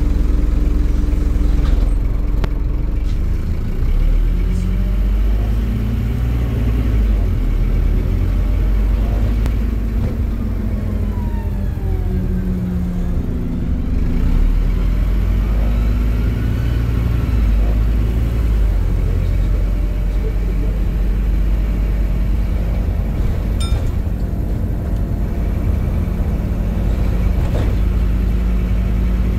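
Scania Visionaire double-decker bus heard from inside its passenger saloon: the diesel engine's drone over steady road rumble, its pitch rising and falling several times as the bus speeds up and eases off.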